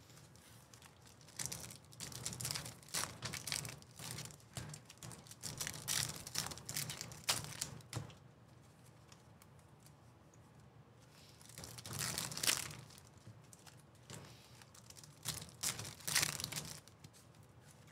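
Trading card pack wrappers being torn open and crinkled, in two spells of rustling a few seconds apart.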